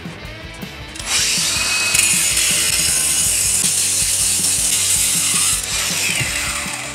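Angle grinder cutting through a mower muffler's metal exhaust pipe: it spins up about a second in, cuts loudly and steadily for about four and a half seconds, then winds down with a falling pitch near the end.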